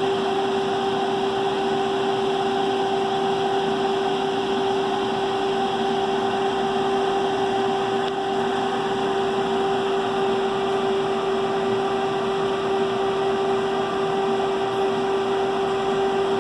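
A 40 horsepower direct-drive fan motor running at a steady speed with a constant hum. It has a rumble from rust in its bearings after sitting unused for a long time.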